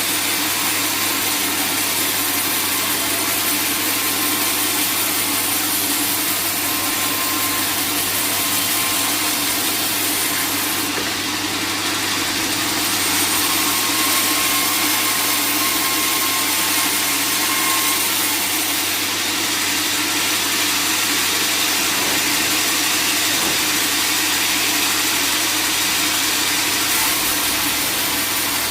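Sawmill machinery running steadily: a constant low hum under a loud, even hiss, with no pauses or strikes.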